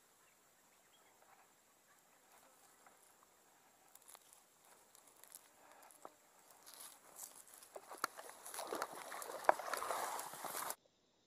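Crackling and rustling of grass and fishing gear being handled close to the microphone, faint at first, growing louder over the last few seconds and then cutting off abruptly.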